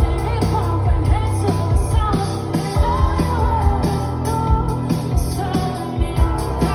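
Live rock band performing with a female lead vocalist singing over a steady drum beat and sustained bass.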